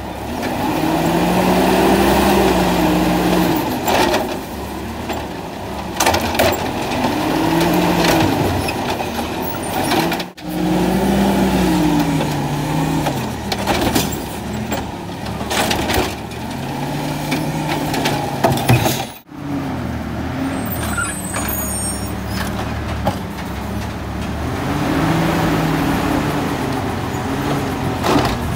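Natural-gas automated side-loader garbage truck emptying carts: the engine revs up and falls back again and again as it drives the hydraulic lifting arm, with clanks of the cart against the arm and body.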